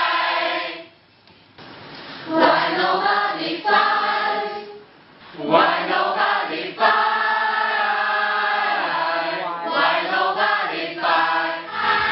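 A large mixed choir of men and women singing together, the song's one-line refrain sung as a group shout, in three phrases with short breaks about a second in and about five seconds in.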